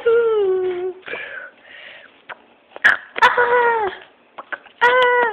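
A child humming in a high, squeaky voice: several drawn-out notes that slide up and down, with pauses between them. A few sharp clicks come in the gaps.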